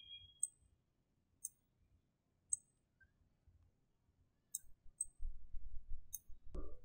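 Computer mouse clicking: about six single, sharp clicks spaced a second or so apart, with a faint low rumble near the end.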